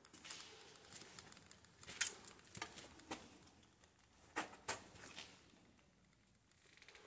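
Footsteps crunching and scraping over debris on a littered floor: a string of sharp crunches, about two a second, loudest near the middle.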